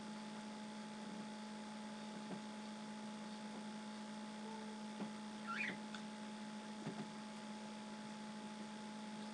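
A steady low electrical hum, with a few faint taps and splashes from a cockatiel flapping its wings in its bath dish. One short rising chirp comes about five and a half seconds in.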